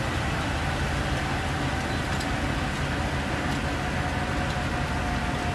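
Twin-turbine AS355 Ecureuil 2 helicopter running on the ground, its turbine whine steady over the rumble of the turning main rotor.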